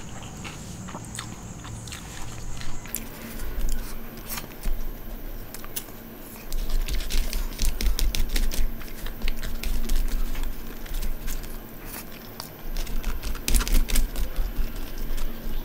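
Close-miked eating sounds: chewing and mouth clicks as biryani rice is eaten by hand, with fingers scooping the rice and crinkling the aluminium foil tray it sits in. The sound is a stream of short, irregular clicks and crackles.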